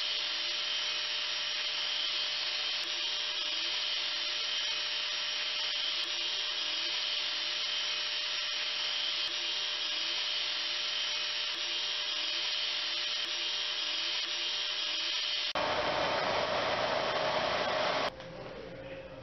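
Epilog Mini laser engraver running while it engraves a tortilla: a steady rushing noise of its fans, with a faint whir repeating about twice a second as the head sweeps back and forth. Near the end it gives way to a louder, different noise for a couple of seconds, then drops to a quieter hum.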